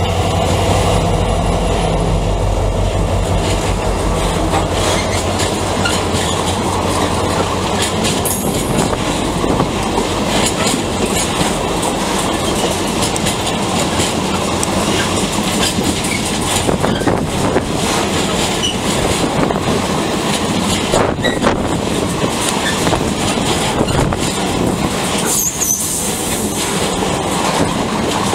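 A Takargo Vossloh Euro 4000 diesel locomotive passes close by, its engine running for the first few seconds. Then a long train of empty timber wagons rolls past, the wheels clacking over the rail joints, with a brief high wheel squeal near the end.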